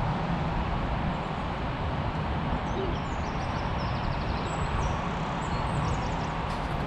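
Steady rumble of wind on the microphone. Faint high chirps of small birds come in about two and a half seconds in and run to near the end.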